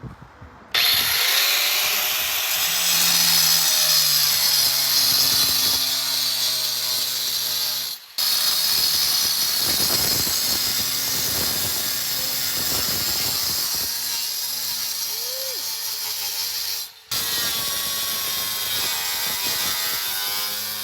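Power tool cutting into the metal of an ATM's casing, a loud, harsh, hissing grind that starts about a second in and breaks off briefly twice.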